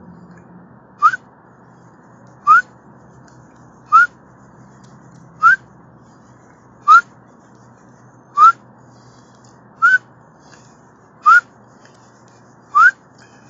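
A man whistling short rising chirps, one about every one and a half seconds, nine in all, imitating a car alarm that sounds like a little dog.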